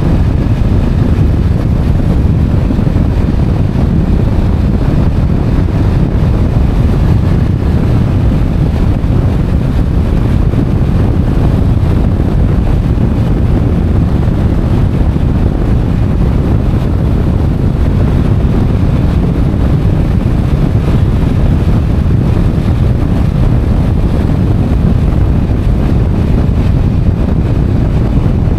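Motorcycle ridden at steady road speed, heard from the rider's camera: a loud, steady, low rush of wind on the microphone, with engine and road noise mixed in underneath.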